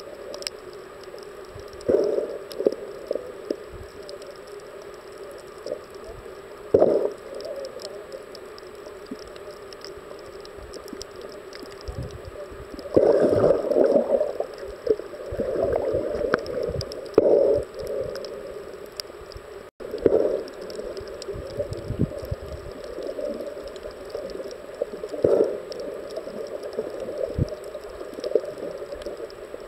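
Muffled water sound picked up by an underwater camera while snorkeling: a steady low hiss of moving water with irregular louder surges every few seconds.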